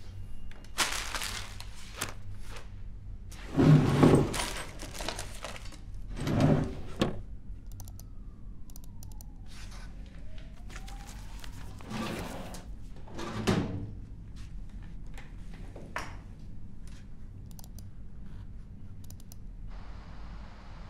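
Scattered thunks and rustles of objects being handled at a desk in a small room, about six in all, the loudest about four seconds in, over a low steady hum. A faint tone falls then rises near the middle.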